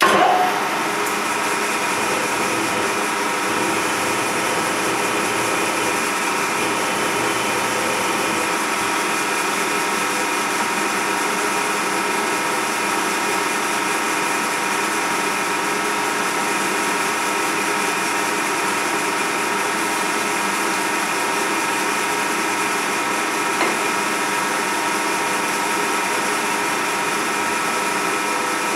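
Vertical milling machine starting up and running steadily, a constant whine of several steady tones over motor noise, its spindle turning a centre drill to spot holes in a dividing plate.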